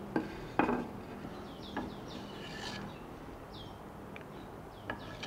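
Wooden broomstick shaft and PVC pipe roller being handled and fitted into the holes of a wooden side board: a few sharp wooden knocks, with a little rubbing between them.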